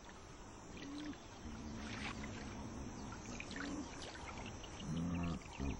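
Hippopotamuses in a river: water lapping, with several short, low grunting calls.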